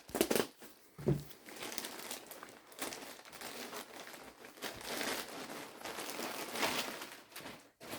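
Packaging crinkling and rustling in irregular bursts as an item is handled and pulled out of its wrapping.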